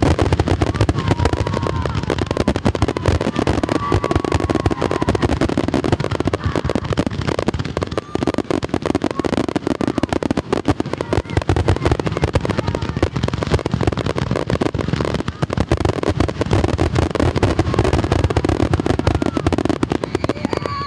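Fireworks going off in a dense, continuous barrage: rapid overlapping shell bursts and crackling with no gaps.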